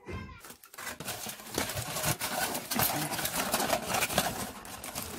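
Aluminium foil crinkling and crackling as a sheet is handled and pressed over a bowl, starting a moment in.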